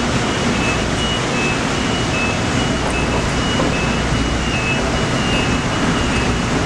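Laser-guided vehicle driving with its warning beeper sounding a repeating high two-tone beep, over the steady din of newspaper mailroom machinery.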